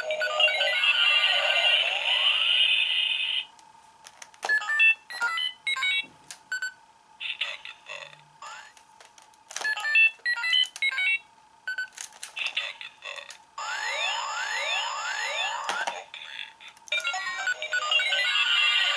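Kamen Rider Ryuki toy transformation belt (V-Buckle) playing its electronic sound effects, which include its hidden sounds. A steady, alarm-like electronic tone plays first and stops suddenly about three and a half seconds in. Short sequences of beeping notes follow, then several rising sweeps, and the steady tone comes back near the end.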